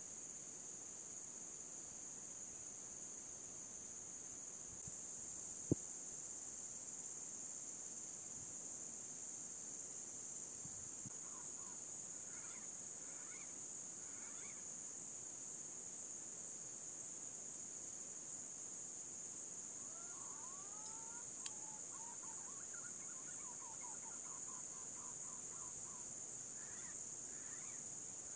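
A steady, high-pitched insect chorus drones throughout. Faint bird calls come in briefly around the middle and again over the last third. Two sharp clicks stand out, one early and one about three-quarters of the way in.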